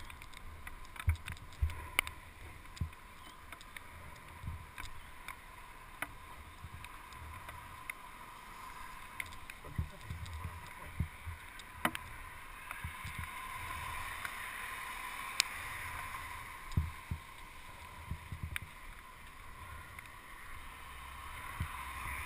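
Mountain bike rolling fast over wet pavement and brick paving: a steady rush of tyre and air noise, broken by irregular sharp clicks and low knocks as the bike jolts over bumps and edges.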